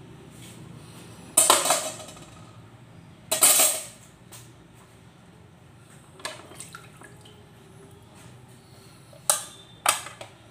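Kitchen clatter of pots, dishes and utensils being handled, with water: two short loud clattering bursts about one and a half and three and a half seconds in, then a few lighter knocks and clinks later on.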